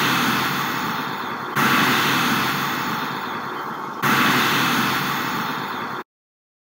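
Countdown sound effect, one long noisy burst per number: the bursts start suddenly about one and a half and four seconds in, each fading slowly, and the sound cuts off abruptly about six seconds in.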